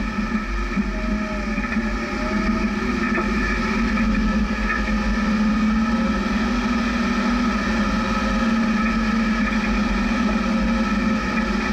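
Jeep engine running steadily as it drives slowly off-road, a constant drone with no revving.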